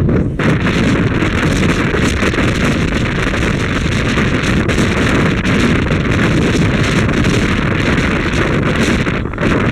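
Wind buffeting the microphone over the steady rumble of a moving train, with brief dips in the noise just after the start and near the end.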